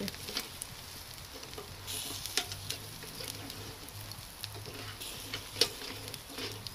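Chicken pieces on metal skewers sizzling over hot charcoal on a mangal grill, a steady hiss broken by scattered sharp clicks and pops.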